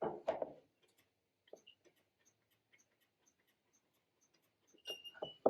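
Quiet clicks and knocks from the mower's controls being worked while its safety interlocks are tested with the key on, then faint, regular ticking about three times a second and a short high tone near the end.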